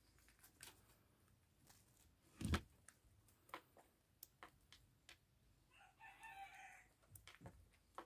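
Near-quiet, with a cat pawing at fish in a plastic tub: faint scattered taps and clicks, and one louder thump about two and a half seconds in. About six seconds in, a brief pitched animal call lasts about a second.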